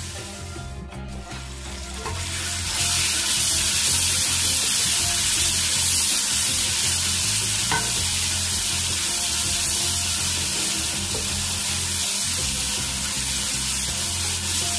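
Chopped tomatoes and green chillies sizzling as they fry in hot oil in a kadhai, stirred with a wooden spatula. The sizzling grows louder about three seconds in and stays steady after that.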